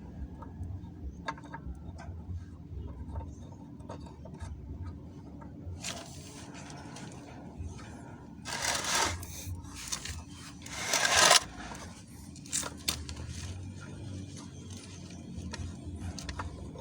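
Hand work on metal pump parts: scattered small clicks and knocks, with two loud scrapes of about a second each in the middle, over a low steady hum.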